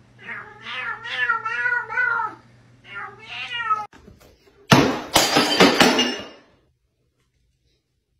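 A domestic cat meowing in three drawn-out, wavering yowls. About five seconds in a loud, rough burst of clattering noise follows for under two seconds.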